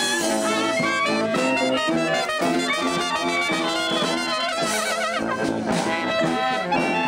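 A small marching band playing a tune live together: saxophone and clarinets with brass horns.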